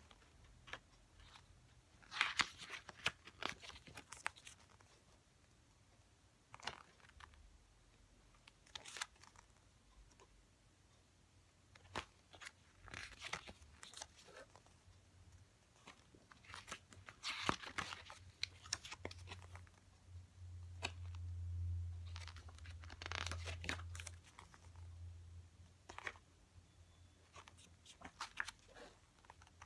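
Glossy pages of an album photobook being turned by hand: bursts of paper rustling and flicking every few seconds. A low rumble runs for a few seconds in the middle.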